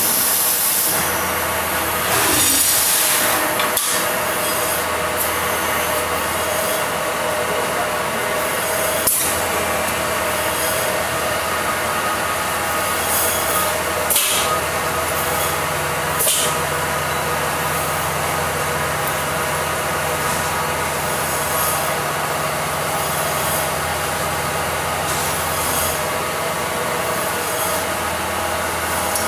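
Vacuum skin packing machine running: a steady machine drone with a low hum, bursts of hiss in the first few seconds, and sharp clicks at a few points. A second, lower hum joins about halfway through.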